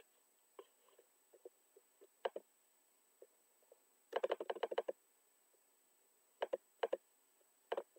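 Computer mouse and keyboard clicks: two clicks about two seconds in, a quick run of about ten clicks just after four seconds, then clicks in pairs near the end.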